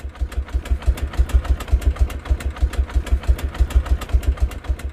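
Motorcycle engine idling, an even, rhythmic train of low thumps at about eight a second.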